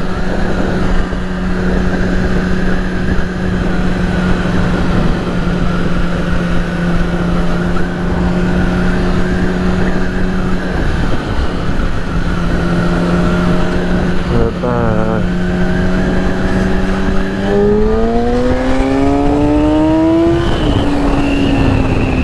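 Yamaha R6 inline-four sport-bike engine cruising at steady revs over wind rush. Near the end it revs up through a gear, and the pitch drops sharply at the upshift.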